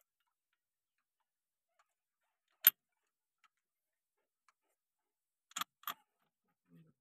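Sharp metallic clinks of loose bolts and washers being handled on a tractor's hydraulic lift cover as it is bolted down: one loud click a little under three seconds in, then two more about a third of a second apart near the end.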